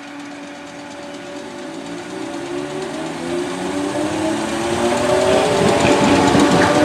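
Merseyrail Class 508 third-rail electric multiple unit running in alongside the platform. Its motor hum and wheel-on-rail noise grow steadily louder as it nears and draws past, with tones that rise slowly in pitch.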